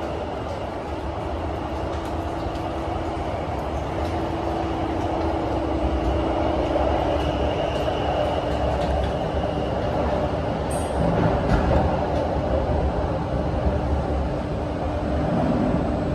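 Running noise of a Kawasaki–CRRC Qingdao Sifang CT251 metro train, heard inside the car as it travels between stations. A continuous rumble of wheels on rail carries a steady hum, growing a little louder over the first several seconds.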